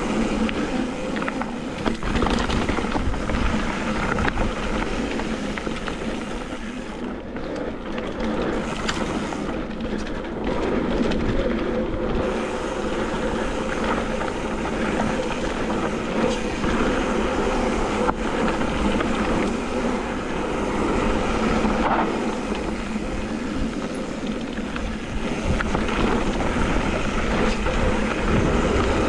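Riding noise picked up by a helmet-mounted action camera on a gravel trail: tyres rumbling and crunching over gravel and wind on the microphone, with scattered knocks and rattles over bumps.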